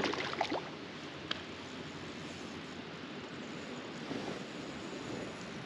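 Steady rushing outdoor noise of wind and water at the creek's edge, with one short click about a second in.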